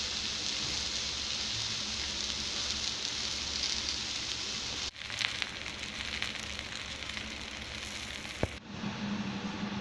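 Wheat dosa batter sizzling on a hot griddle (tawa), a steady hiss that breaks off abruptly about five seconds in and again near the end.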